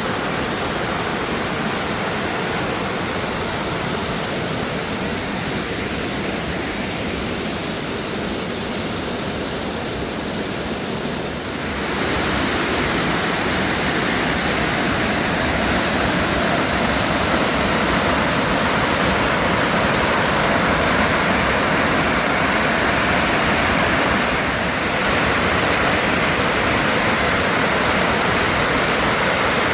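Sannotaki waterfall's water rushing in a steady roar of white water. It becomes louder and brighter about twelve seconds in, with a brief dip near twenty-five seconds.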